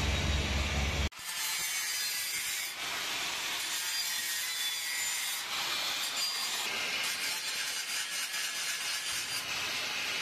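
Small angle grinder grinding down the TIG root weld on a 3-inch stainless-steel pipe joint, a steady scraping hiss. A low hum cuts off sharply about a second in, just before the grinding starts.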